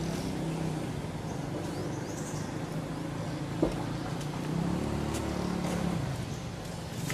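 A motor running steadily in the background, a low hum that grows louder about four and a half seconds in and eases off near the end. There is one sharp click a little after three and a half seconds.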